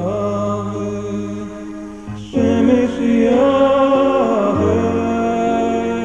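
Background music with a chanted, mantra-like vocal over a steady low drone; it grows louder a little over two seconds in.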